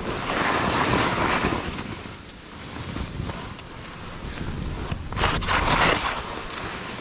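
Skis scraping across steep, firm snow on turns, with wind rushing over the microphone. There are two louder swells of scraping, one at the start and one about five seconds in.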